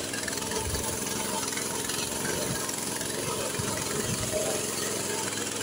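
Walk-behind-tractor engine of a homemade trike running steadily in first gear, with a constant hiss over it.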